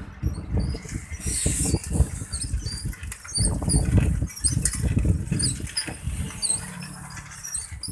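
Wind buffeting the microphone of a camera moving along an open road, a gusty low rumble that swells and drops irregularly. Faint, short, high chirps are dotted through it.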